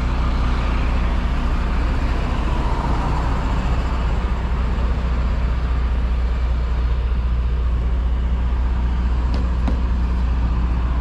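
Diesel engine of a parked semi-truck idling, a steady low rumble. A couple of light clicks near the end.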